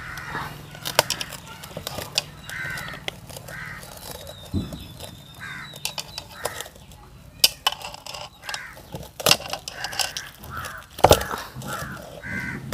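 Crows cawing over and over, short calls less than a second apart, with a few sharp knocks among them.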